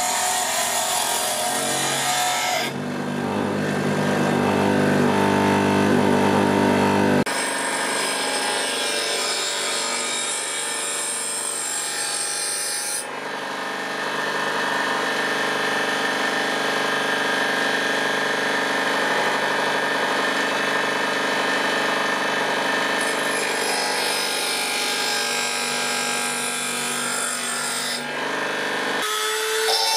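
Bench grinder running while a piece of steel saw blade is held against the spinning wheel and ground, a steady motor hum under a rasping grind. The sound changes abruptly several times, at about 3, 7, 13 and 29 seconds in.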